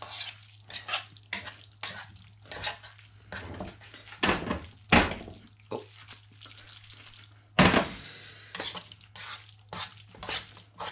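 Metal tongs scraping and clacking against a frying pan as spaghetti is tossed through an egg-and-cheese sauce, in irregular scrapes with a few louder knocks around four to five seconds in and again at about seven and a half seconds.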